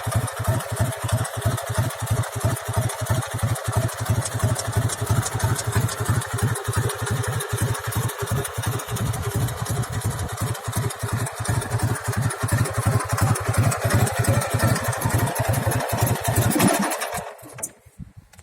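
Dnepr motorcycle's flat-twin engine running steadily with a pulsing exhaust beat, then switched off about a second before the end and dying away.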